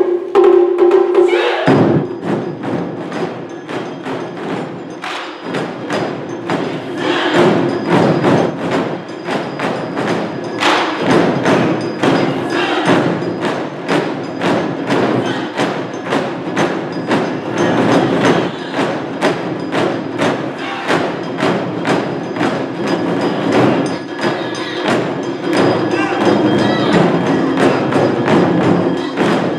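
Taiko drum ensemble playing a driving rhythm of many heavy drum strikes, with crisp clicking hits among them. It opens with a loud held note that cuts off after under two seconds.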